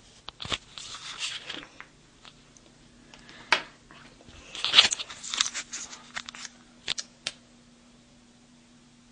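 Handling noise close to the microphone: scattered clicks and knocks with short rustling, scraping bursts, the loudest a little before the middle. A faint steady hum comes in about halfway through.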